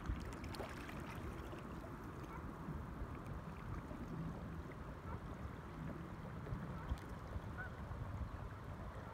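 Steady wind rumbling on the microphone with river water lapping around the kayak, and a single light click about seven seconds in.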